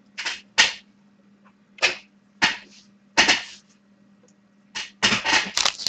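Hockey card packs and cards being handled: a series of short rustles and rips from the wrappers, a few spaced out at first and then a quick cluster near the end.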